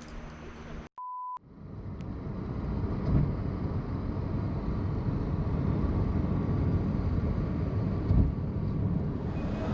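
A short steady one-tone beep just after a cut, then a low rumbling noise that swells up and holds steady.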